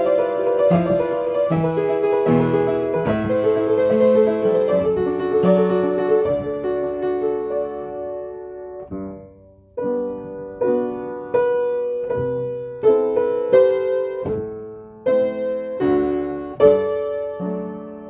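Upright acoustic piano played solo: a flowing passage that fades away about nine seconds in, then a slower passage of separately struck chords, a little more than one a second.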